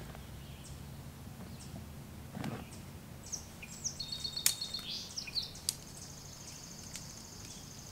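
Songbirds chirping in the woods, with fast, even trills from about four seconds in, over a steady background hum. A soft rustle comes about two and a half seconds in, and a few sharp clicks come through the middle, the loudest about four and a half seconds in.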